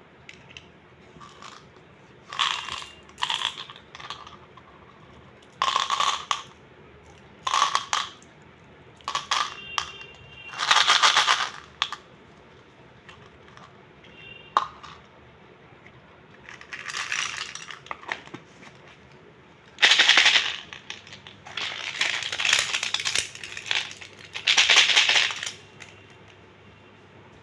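Handling of a plastic candy toy and its wrapping: irregular bursts of crinkling and rattling with sharp clicks, about a dozen, each up to a second long, with short pauses between them.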